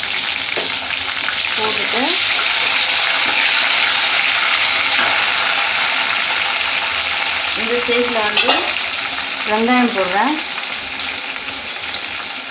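Hot oil sizzling steadily in a kadai as dried red chillies, green chillies, curry leaves and coriander leaves fry for a tempering, stirred with a perforated metal ladle.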